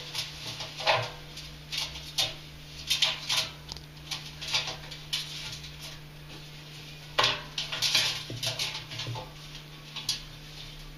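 Pet ferrets scrambling and play-wrestling inside a front-loading washing machine's metal drum: irregular scuffling, claw scratches and light knocks against the drum, in clusters with short pauses between.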